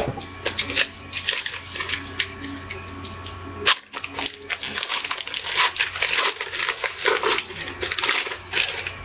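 A trading card pack's wrapper crinkling and tearing as it is pulled open by hand, a dense run of sharp crackles that is busiest in the second half. A steady low hum runs underneath.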